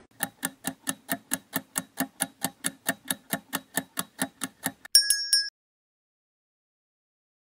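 Countdown timer sound effect: quick clock-like ticking, about four to five ticks a second, for nearly five seconds, ending in a short bright ding as the five-second answer time runs out.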